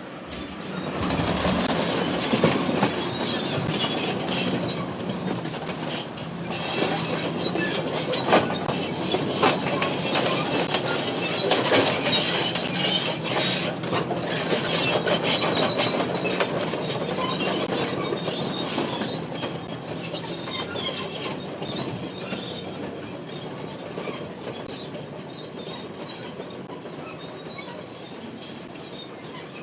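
Bulldozer crushing cars: screeching and crunching of buckling metal with sharp cracks, over the steady drone of the machine's engine. The noise gradually dies away over the last ten seconds.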